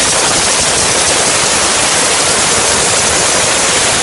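High-pressure jet from a mobile steam car-wash machine's spray lance, a loud steady hiss.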